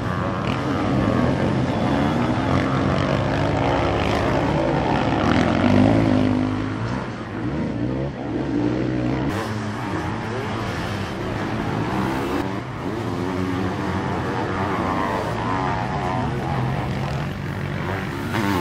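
Engines of several sidecar motocross outfits revving hard under racing load, their pitches overlapping and rising and falling as the throttle is opened and shut; loudest about six seconds in.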